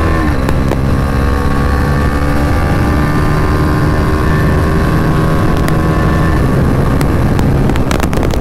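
Sport motorcycle engine running hard at highway speed, heard from the rider's seat. Its note dips in pitch right at the start, then holds and slowly sinks until it fades about six seconds in, leaving an even rush of wind and road noise.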